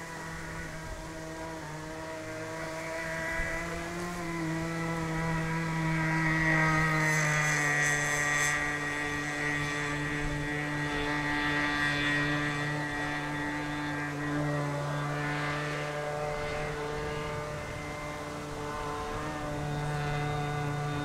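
An engine running steadily at a constant speed; its pitch drops slightly about four seconds in.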